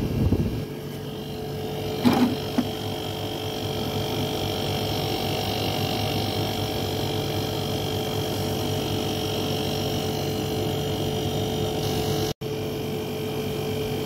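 Carrier window air conditioner running, compressor and fan motor giving a steady hum with a steady tone on top. Its refrigerant has just been topped up to 80 on the suction gauge, and it is cooling well. A couple of light knocks in the first two seconds.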